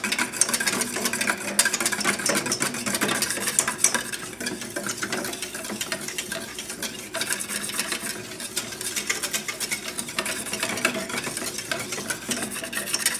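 Wire whisk beating an egg-yolk custard in a stainless steel pan over a double boiler: rapid, continuous whisking with the wires scraping and clicking against the metal. The yolks are being cooked and thickened.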